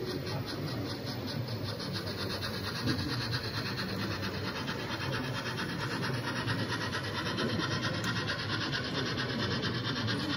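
Model steam locomotive running on the layout, giving a quick, even rasping rhythm over a steady background hum.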